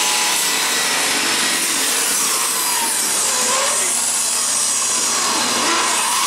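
Power saw running steadily as it cuts wood, a continuous loud whir whose pitch wavers up and down.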